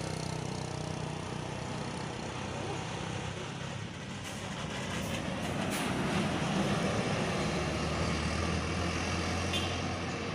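Large bus engine running with tyre and road noise as it passes, a low steady hum that deepens about three-quarters of the way through; no horn sounds.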